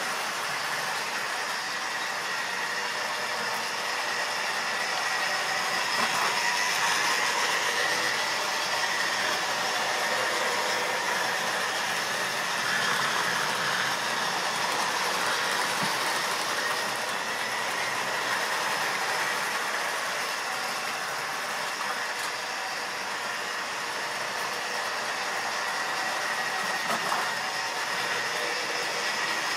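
OO-gauge model trains running on the layout's track: a steady rattle of wheels on rails, joints and points with the whirr of their motors, never stopping.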